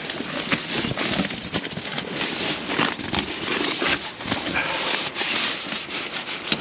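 Continuous nylon rustling and crinkling as an inflated air sleeping pad is pushed and slid against the tent's floor and walls, full of short crackles.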